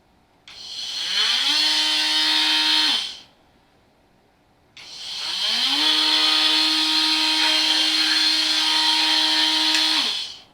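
Ryobi 18V ONE+ cordless oscillating multi-tool run twice off the trigger: each time the motor spins up with a rising whine, holds a steady high buzz, then winds down. The first run lasts about two and a half seconds, the second about five.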